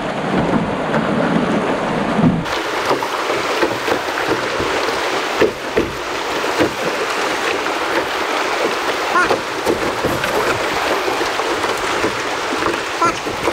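Rushing water of a shallow, rocky rapid around a canoe, a steady hiss with a few sharp knocks.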